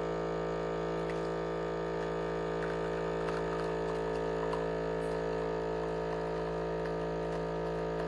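Lavazza Classy Mini capsule espresso machine's pump humming steadily while it brews a double shot, with faint small crackles of coffee running out partway through.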